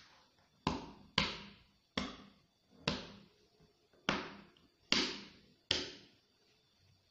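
Kitchen knife chopping a bar of dark chocolate with almonds on a plastic cutting board: seven sharp chops, about one a second.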